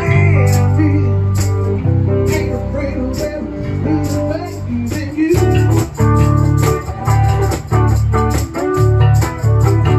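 A small band playing live, an electric bass carrying deep notes under steady ticking percussion and plucked guitar. About halfway through the playing turns louder, in short phrases with brief breaks between them.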